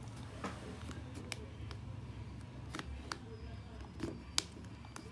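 Scattered sharp clicks and taps, about half a dozen, the loudest near the end, as a pry tool works around the back cover of a Tecno Spark 2 smartphone, over a low steady hum.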